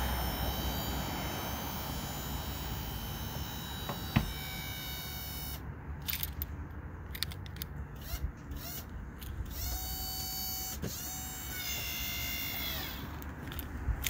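The upward-swinging scissor-style door of a 1994 Mazda RX-7 is lowered and shut, with one sharp latching thud about four seconds in and a few lighter knocks after it. A faint steady whine follows later.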